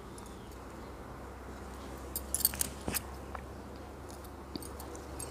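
Faint clicks and rustles of a crochet hook working wool yarn, with a few sharp ticks about two to three seconds in, over a low steady hum.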